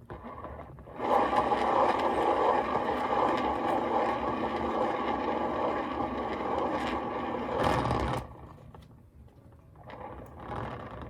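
A small electric motor runs steadily for about seven seconds, starting about a second in and cutting off suddenly.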